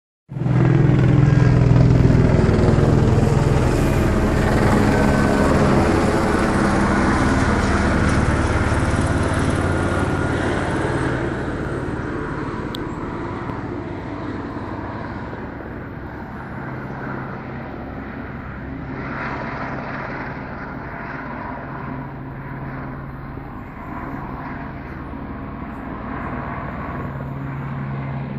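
Police helicopter flying overhead: a steady rotor-and-engine drone, loudest for the first ten seconds or so, then fainter and steady as it circles farther off.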